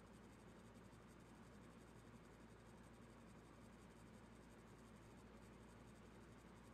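Near silence: room tone, a faint steady hiss with a low hum.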